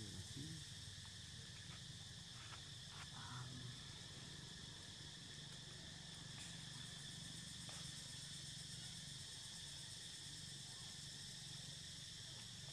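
Steady, high-pitched droning of insects, with a few faint clicks about two to three seconds in.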